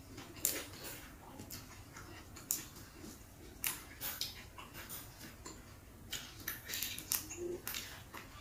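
Fresh lemon basil (kemangi) sprigs handled by hand, giving irregular crisp snaps and rustles as the leaves and stems are picked apart.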